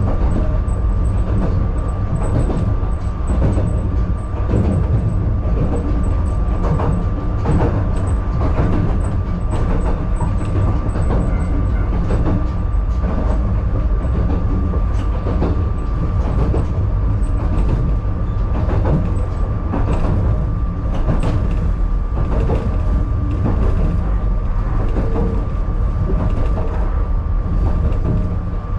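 Narrow-gauge (762 mm) electric train, unit 261F, running along the track, heard from inside the driver's cab: a steady rumble of wheels on rail with a constant whine and scattered clacks.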